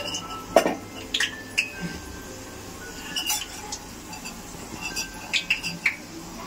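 Metal spoon clinking against a steel bowl of batter as potato balls are dipped and coated: a handful of sharp clinks at uneven intervals, the loudest a little after half a second in.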